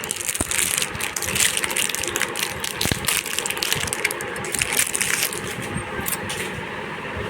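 Rapid crackling and small clicks of thin stamped metal and plastic being handled: the motherboard's I/O shield being worked into the rear opening of the PC case.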